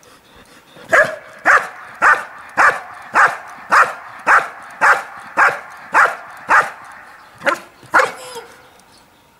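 Belgian Malinois barking steadily at a standing helper, about two loud barks a second for some six seconds, then two more near the end. This is the guard-and-bark of IPO protection work: the dog holds the helper in place by barking instead of biting.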